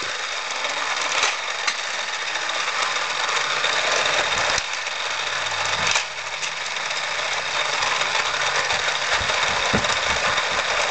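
A small motor whirring steadily, with a few sharp clicks about a second in and near the middle, and some low knocks towards the end.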